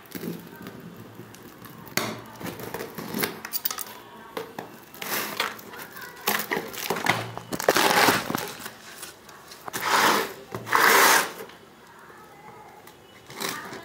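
Clear plastic film wrapped around a cardboard courier parcel crinkling and rustling in irregular bursts as it is handled, with a few sharp clicks and knocks; the loudest rustles come a little past the middle.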